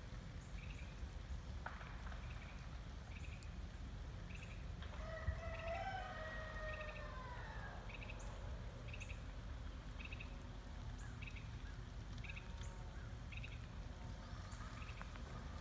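A small bird calls over and over, a short chirp a little more than once a second, over a steady low outdoor rumble. From about five to eight seconds in, a drawn-out tone with several pitches slides slowly down.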